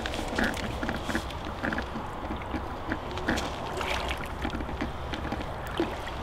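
Water sloshing and splashing at the bank as a hooked carp is drawn over a landing net, with small knocks and clicks of tackle handling.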